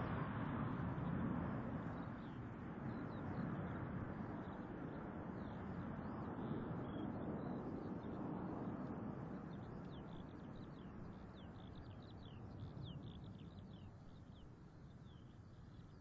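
Airbus A380 airliner's jet noise from its four engines, a low steady noise that fades as the aircraft flies away. Small birds chirp over it, plainer in the second half as the jet noise dies down.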